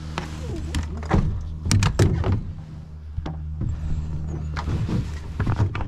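Hollow knocks and thumps of a plastic sit-on-top kayak being shifted and bumped as someone settles into it beside an inflatable dinghy. A cluster of knocks comes about a second in and more near the end, over a steady low hum.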